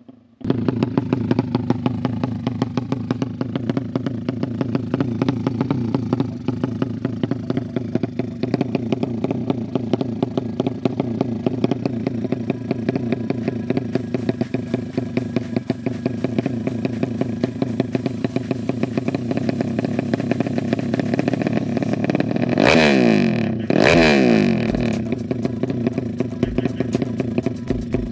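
A drag-race motorcycle's single-cylinder engine running through an open racing exhaust, idling with a rapid, even firing beat. Near the end it is revved twice in quick succession, each blip rising and falling in pitch.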